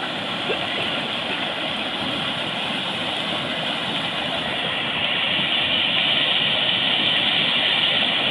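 Floodwater rushing steadily over an overflow weir, an even roar of water that grows a little louder about five seconds in.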